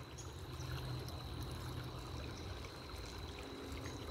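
Shallow woodland creek running over rocks: a steady, soft trickle and rush of water, with a low rumble and a thin, steady high tone underneath.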